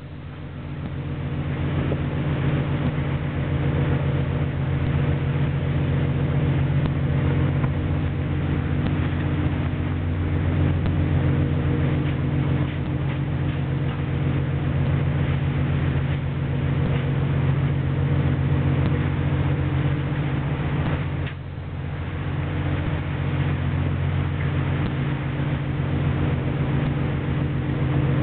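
Steady drone of a fishing boat's engine and deck machinery, with a rushing wash of wind and sea over it. It swells up over the first couple of seconds and drops briefly about three-quarters of the way through.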